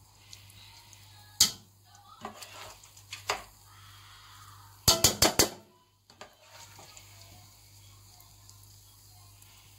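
Serving spoon clinking and tapping against a coated cooking pot as chicken pieces are spooned onto a layer of rice. There is one sharp knock about a second and a half in, a few lighter taps, then a quick run of four or five clinks about five seconds in, over a faint steady hum.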